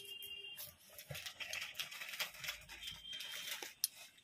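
Hands handling and rubbing heavy denim jeans close to the microphone: irregular scratchy rustling of the fabric with scattered light clicks.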